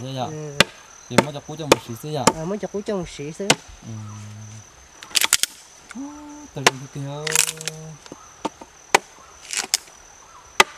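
Machete blade chopping into a block of fresh-cut wood to carve a notch: about a dozen sharp strikes, roughly every half second at first, then in scattered quick clusters.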